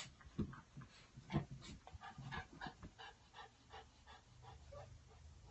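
Schnauzer dog panting in a quick run of short breaths, about three a second, trailing off after about four seconds. A couple of low thumps come in the first second and a half.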